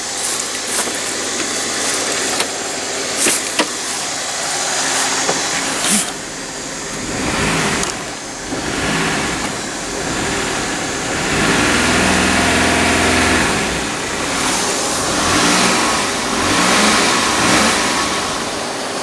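Chrysler Sebring engine running and being revved up several times, an engine the owner calls blown and that is burning oil. A few sharp clicks in the first six seconds.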